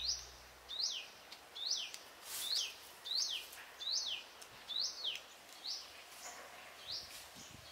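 A bird calling over and over, a short, high, sweeping note repeated a little faster than once a second. Background music fades out at the start.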